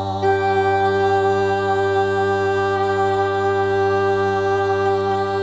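Droning music of sustained, steady held tones over a constant low drone, with a further layer of tones coming in about a quarter second in.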